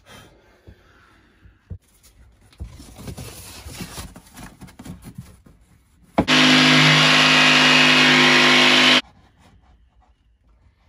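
Plywood panels knocked and rubbed into place in a wooden cupboard frame, then a cordless drill runs steadily for about three seconds and stops suddenly. The drill is the loudest thing here.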